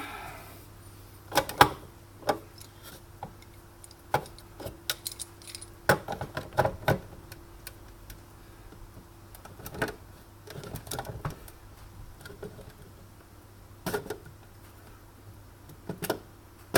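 Metallic clicks, clinks and rattles in scattered clusters as tools work on parts of a Sunbeam espresso machine being taken apart, over a faint steady hum.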